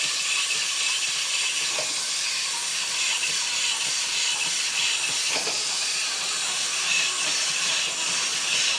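A steady hissing noise, even in level throughout.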